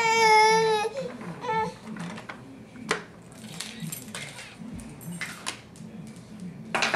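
A baby's high-pitched wavering vocal squeal, about a second long, followed by a shorter one. After that come scattered light clicks and knocks of a plastic toy telephone being handled, with a louder clatter near the end.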